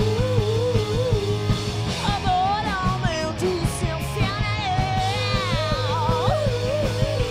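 Live rock band playing: electric guitar, bass guitar and drums over a steady beat, with a singer's voice carrying a wavering melody.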